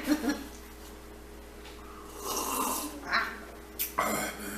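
Close-up mouth sounds of someone eating: chewing and heavy breathing, with a louder, rougher stretch about two seconds in.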